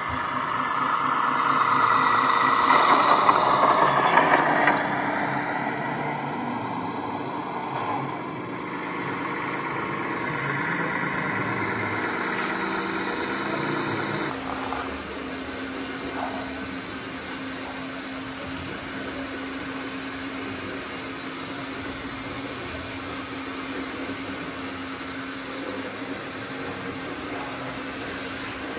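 Radio-controlled model construction trucks at work, their small motors whining. A loud whine swells over the first five seconds or so, then settles into a steadier mechanical hum.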